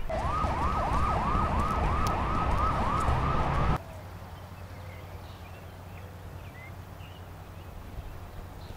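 Siren in a fast yelp, a rising wail repeating about three times a second over a low rumble, that cuts off suddenly about four seconds in. Afterwards a quieter outdoor background with a few faint bird chirps.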